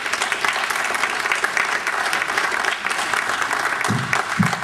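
Audience applauding: steady clapping of many hands, with a man's voice breaking in briefly near the end.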